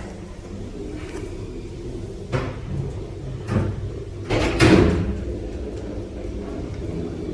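A KMZ passenger lift's sliding doors moving with a series of clunks over a steady low hum, the loudest clunk about four and a half seconds in.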